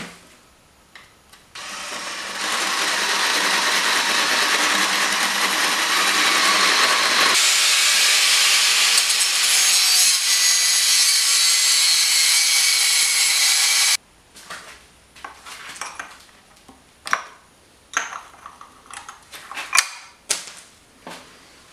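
Handheld power tool grinding metal at a camshaft sprocket bolt, running steadily for about twelve seconds, then cutting off suddenly. Afterwards, scattered light metallic clinks and knocks as tools are handled.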